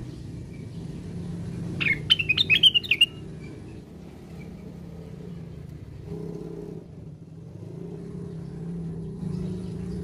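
A caged cucak wilis bulbul gives a short burst of quick chattering whistled notes about two seconds in, with a few faint notes later. A steady low rumble runs underneath.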